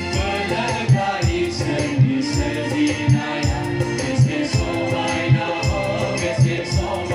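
Amplified Bodo gospel song performed live: a group singing together over a steady drum beat, with a shaker-like rattle keeping time.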